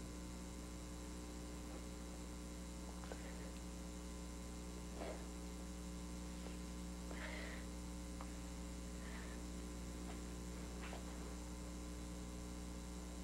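Steady electrical mains hum over faint hiss, with a few faint brief soft sounds along the way.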